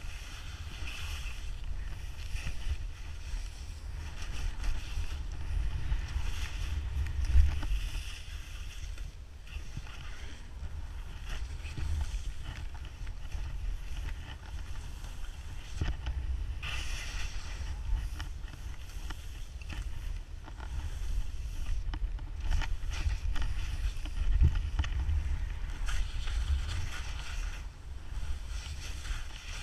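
Wind rushing over a pole-mounted camera's microphone on a fast ski descent, a steady low rumble, with the hiss of skis cutting through soft snow swelling and fading with the turns.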